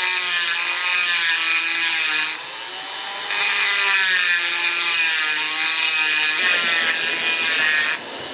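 High-speed rotary tool with a cone-shaped abrasive point grinding the edge of a 1911 pistol's ejection port to flare it, a steady motor whine that wavers in pitch as the bit bears on the slide. It eases off briefly about two and a half seconds in.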